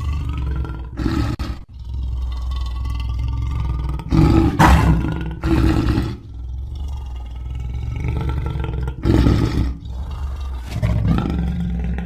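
Lion roar sound effect: a long, low roar that keeps going, swelling into louder surges about half a dozen times, with brief dips between them.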